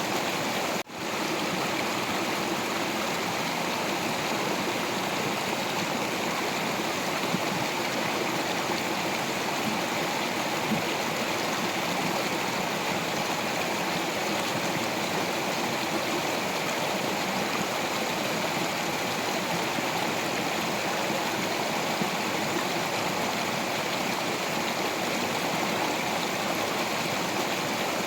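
Stream of water flowing over rocks, a steady, unbroken rush of water, with a momentary drop in level about a second in.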